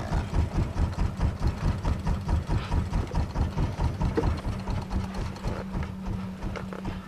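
Boat engine running with a fast, low, rhythmic chugging that fades after about five seconds, leaving a steady low hum.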